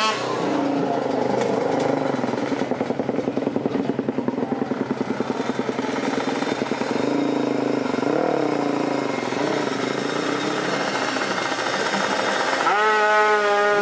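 Twin-exhaust Yamaha MX King drag bike engine, its revs dropping back to idle at the start and idling with a short blip of the throttle about eight seconds in. Near the end it is revved up sharply and held high.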